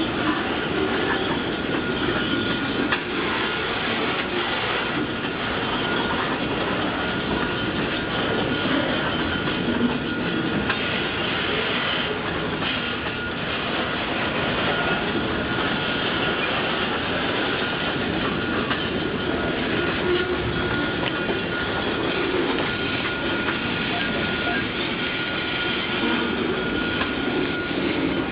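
Freight train's boxcars rolling steadily past, wheels clattering over the rails, with a thin steady high-pitched whine running through it.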